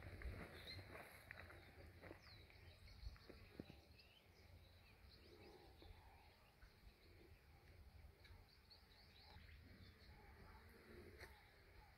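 Near silence: faint outdoor ambience with a few distant birds chirping in short, quick notes.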